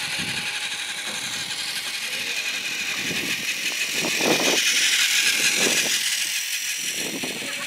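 Battery-powered Plarail toy train running on plastic track, its small electric motor whirring with a light rattle from the wheels and gearbox. It grows louder as the train comes close, peaking about four to five seconds in.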